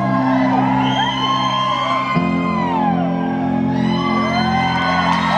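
Live band holding sustained chords, the chord changing about two seconds in, while the audience whoops and whistles over the music.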